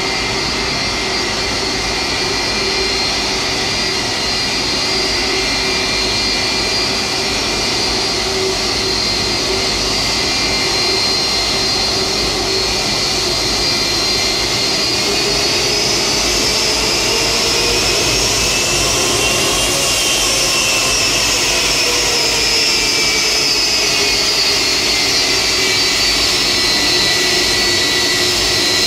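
Boeing 757-300's twin turbofan engines running at taxi power as the airliner rolls up to the stand. A steady high whine sits over a broad rushing noise, and the whine rises in pitch partway through, then sinks back again.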